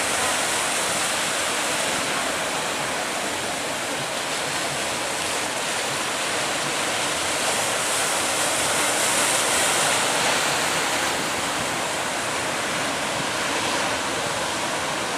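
Heavy surf: big waves breaking and rushing water, a steady roar that swells a little about eight seconds in.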